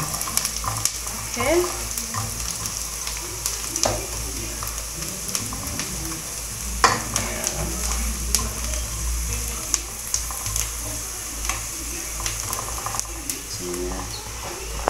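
Chopped onions sizzling as they fry in a pot, stirred with a wooden spoon that clicks and scrapes against the pan now and then. The onions are turning golden brown.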